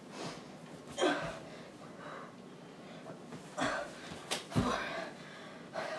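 A woman breathing hard during burpee jump tucks, with about four loud breaths, and dull thuds of bare feet landing on a carpeted floor, the heaviest about two-thirds of the way through.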